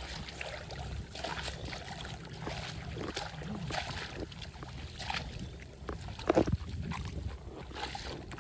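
Shallow muddy water sloshing and splashing in irregular bursts, with a louder splash about six seconds in.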